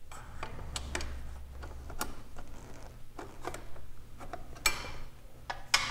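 Ratchet wrench clicking as the exhaust head pipe's flange nuts are tightened down at the cylinder head. The clicks come irregularly, with a couple of louder metal clinks near the end.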